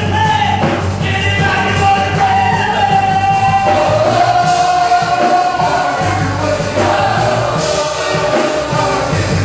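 Live band and singers performing a Christian praise song, the voices holding long notes over a steady bass.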